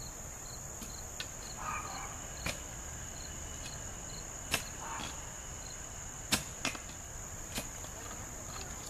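Steel shovel blade driven into rocky red clay soil, giving about five sharp clinks and scrapes as it strikes stones, the loudest about six seconds in. A steady high insect chorus runs underneath.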